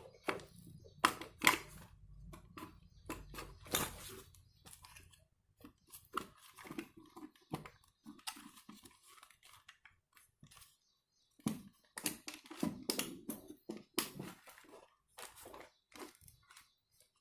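Irregular clicks, taps and scraping of small plastic parts being handled, as a motorcycle speedometer is taken apart and worked on.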